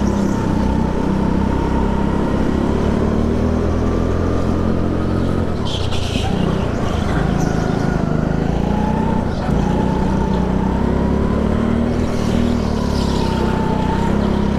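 Rental go-kart running hard around an indoor track, heard from the driver's seat: a steady motor drone with a thin whine above it, both rising and falling in pitch as the kart speeds up and slows for corners.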